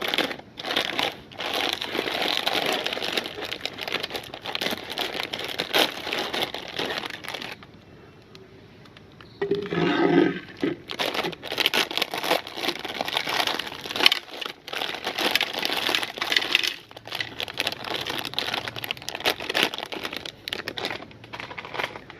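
Plastic candy wrappers crinkling and crackling as mango candies are handled and unwrapped. The crinkling breaks off for a couple of seconds about eight seconds in, a short pitched sound follows, and then the crinkling resumes.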